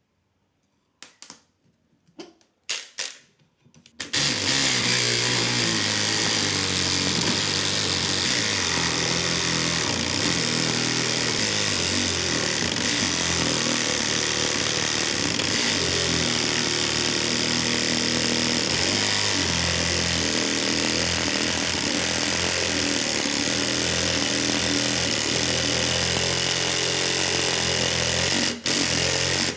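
Homemade jigsaw driven by a 775 DC motor, its blade cutting through a wooden bar. It starts about four seconds in, after a few short knocks, then runs steadily for about 25 seconds, dipping briefly near the end.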